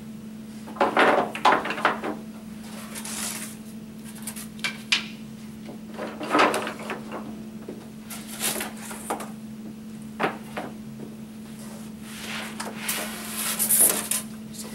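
Particleboard furniture panels and trim moldings being lifted out of a carton and set down on a wooden table: a series of separate knocks, scrapes and packing rustles, busiest near the start and again near the end.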